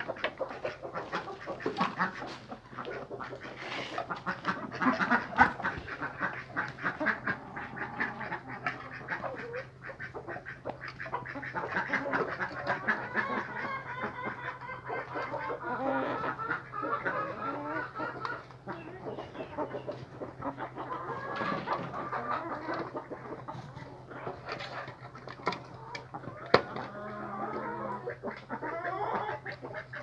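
A flock of hens pecking at watermelon chunks in a basin: rapid, irregular beak taps on the fruit and bowl, with clucking and soft chatter throughout. A steady low hum runs underneath.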